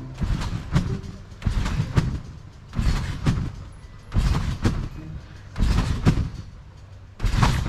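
Large in-ground trampoline taking a person's repeated bounces: a thud on each landing, about one every second and a half, six times.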